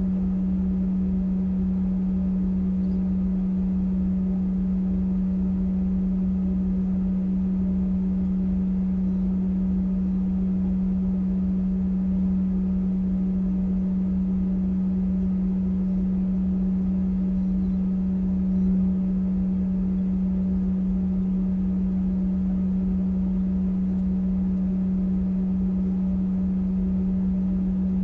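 A parked small vehicle idling with a steady, unchanging low hum and a low rumble beneath it.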